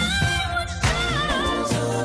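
Background song: a singing voice carrying a wavering melody over a drum beat.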